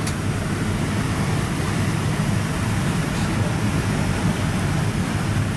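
Steady low rumble of a Boeing 787's jet engines and airflow heard inside the passenger cabin, unchanging throughout.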